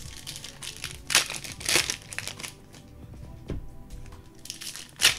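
Plastic packaging crinkling and rustling in several short bursts, the loudest a little after one second and again just before the end.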